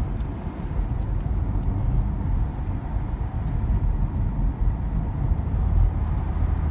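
Steady low road rumble and engine noise heard from inside the cabin of a Jeep Grand Cherokee driving along a narrow road.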